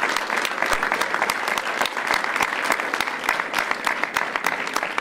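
Applause: many people clapping, a dense, steady patter of hand claps.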